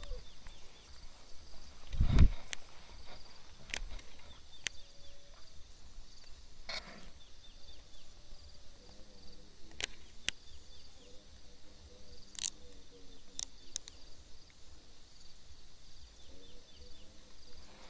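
Outdoor bankside ambience with a steady high-pitched insect drone. Sharp clicks and knocks from a baitcasting rod and reel being handled are scattered through it, with a louder thump about two seconds in.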